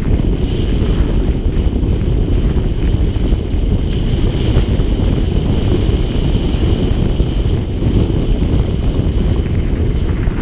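Heavy wind buffeting on an action camera's microphone as a mountain bike rides fast down a dirt single-track trail, mixed with the rumble of the tyres and bike over the trail surface.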